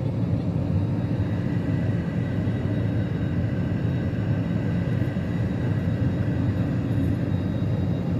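Airliner jet engines and airflow as a steady low rumble, without rising or falling, with a faint high whine over it.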